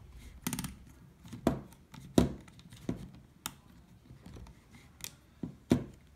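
Sharp plastic clicks and knocks of a Canon PowerShot SX740 HS compact camera being handled as an SD card goes into its battery/card compartment and the camera is turned over: about eight separate clicks, a quick rattle of them about half a second in and the loudest about two seconds in.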